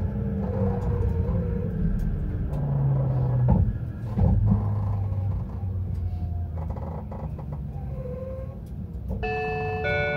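Fujikyu line train slowing into a station: low rumble of wheels and traction motors, a few clicks from the rails and short brake squeals. About nine seconds in, an electronic chime melody begins.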